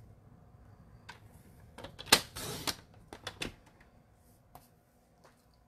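Sliding-blade paper trimmer cutting cardstock: a few sharp clicks of the blade carriage, then a short rasping slide as the blade runs down its track about two seconds in, followed by a few more clicks.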